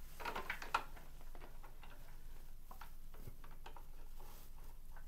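Light clicks and taps of hands handling cables and plastic connectors inside an open desktop computer case, with a small cluster of clicks in the first second and then scattered faint ticks.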